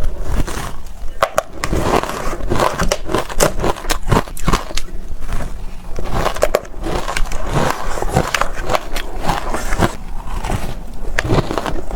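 Packed, powdery reshaped ice being bitten and chewed close to the microphone: a continuous run of crisp, irregular crunches.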